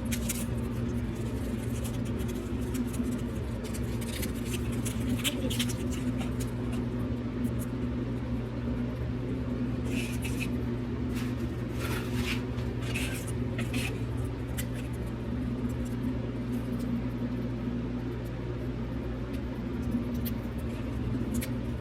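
Steady low electrical hum in a kitchen with scattered clicks and knocks of cooking items being handled, in clusters.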